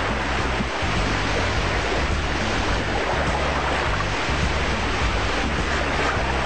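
Steady rushing and splashing of churned water in a fish tank, with background music's low notes changing in steps underneath.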